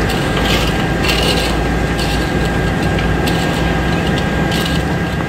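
Shovels and a steel bar scraping through wet sand and gravel, several separate scrapes, over a steady machinery hum.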